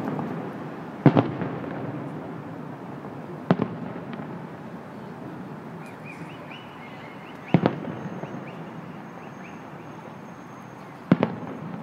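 Fireworks display: four sharp bangs of bursting shells a few seconds apart, with a steady low rumble between them.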